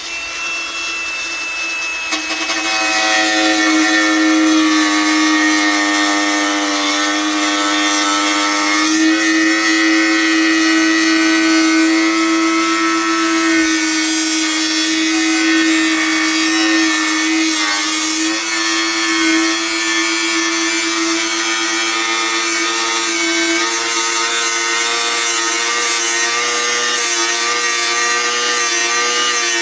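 Handheld angle grinder running continuously and cutting into a panel, a steady motor whine under a harsh hiss, its pitch shifting a little as the load changes.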